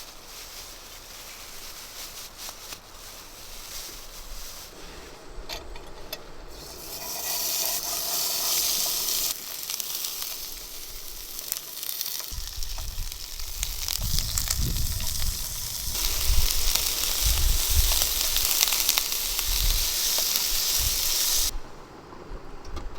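Beef sizzling as it cooks, a steady frying hiss that swells and changes abruptly several times. Low thumps and rumble run underneath in the second half.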